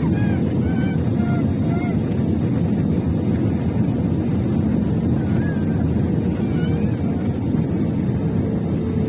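Airliner cabin noise during the landing roll: a loud, steady rumble of the engines and the wheels on the runway, with a faint steady whine coming in about two-thirds of the way through.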